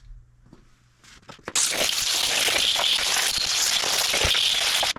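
Compressed air blown into a Stihl MS400C chainsaw to clear out sawdust: a loud, steady hiss with a crackle through it starts about a second and a half in and cuts off sharply near the end.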